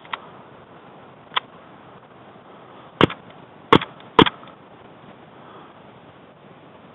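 Airsoft gunfire close by: three loud, sharp cracks about half a second apart, with two fainter clicks a few seconds before them.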